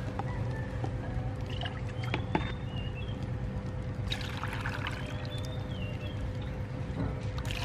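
Water poured into a ceramic bowl of dried kapok sap pieces, the splashing pour starting about four seconds in, over a steady low background rumble.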